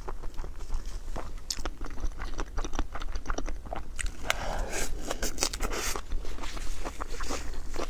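A person eating rice and Chinese noodles close to the microphone: chewing and biting with many small crisp clicks. About four seconds in there is a longer noisy rush of sound lasting a couple of seconds.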